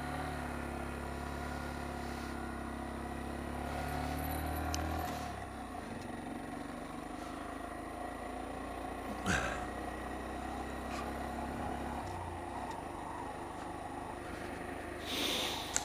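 Honda Z125 Monkey motorcycle's 125 cc single-cylinder engine pulling away. The revs rise for about five seconds, drop back, then run steadily, with a brief click about nine seconds in.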